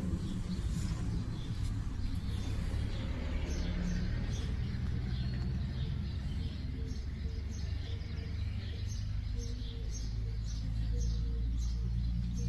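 Short, high bird-like chirps, about two a second, over a steady low hum.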